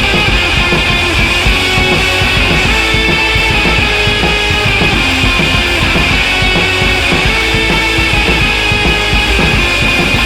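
Loud background rock music with drums and guitar, playing steadily.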